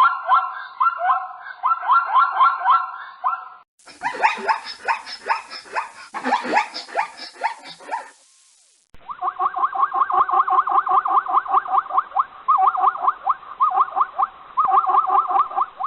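Animal calls: rapid, repeated yelping cries in three short clips cut one after another, the middle clip with falling cries, and a short break about eight seconds in.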